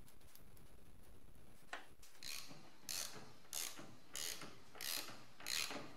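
Hand ratchet clicking as it tightens a nut on the front suspension's upper control arm ball joint. The strokes begin about two seconds in and come in short, evenly spaced runs of clicks, about one every two-thirds of a second.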